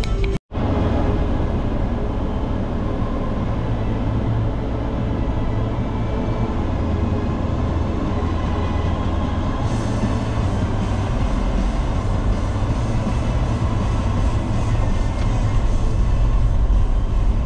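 Steady rumble of a car on the move: road and wind noise, strongest in the low end, running evenly after a brief dropout about half a second in.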